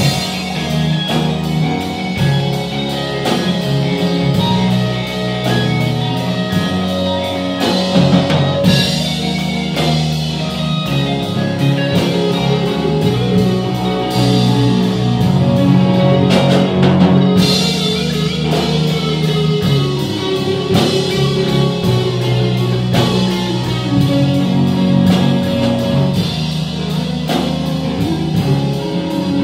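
A live band playing a rock-style worship song on electric guitars and drum kit, with a steady beat.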